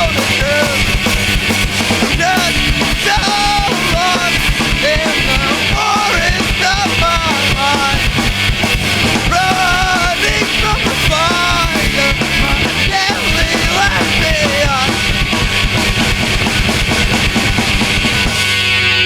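Rock band playing a song live, loud, with a drum kit driving it.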